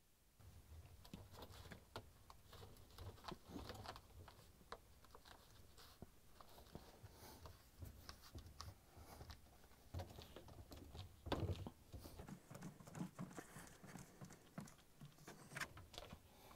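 Faint, irregular rubbing, tapping and clicking of gloved hands pressing a rubber dishwasher door seal into the groove around the tub opening, over a low rumble of handling.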